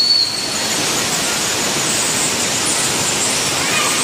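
Cave stream water rushing steadily over and between boulders. A brief high whistle-like tone sounds at the very start.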